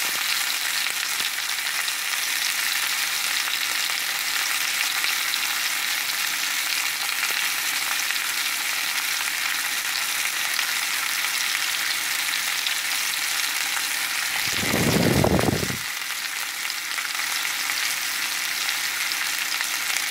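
Beef steak sizzling steadily as it sears in a cast iron skillet. About three-quarters of the way through, a brief low rumble lasting about a second and a half rises over the sizzle.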